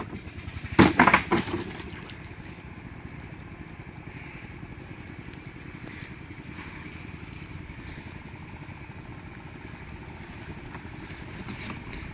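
A wooden boat being poled with a bamboo pole through shallow water: a few loud knocks of the pole against the hull about a second in, then a steady low noise as the boat moves.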